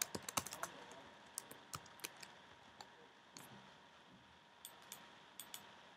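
Faint keystrokes on a computer keyboard while code is typed: irregular clicks, several in quick succession in the first couple of seconds, then a few scattered ones further on, over a faint steady hiss.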